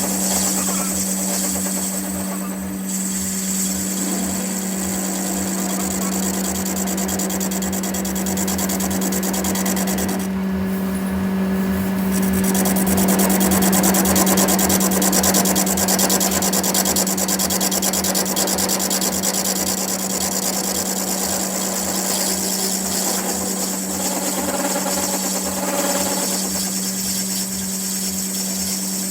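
A powered workshop machine running steadily, with a constant hum and a fast, even mechanical chatter.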